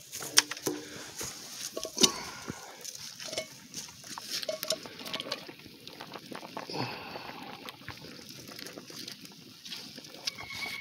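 Boiled whole corn being scooped out of a steel drum with a metal pan: water sloshing and dripping, with irregular knocks and clinks of the pan against the drum, two of them sharp near the start.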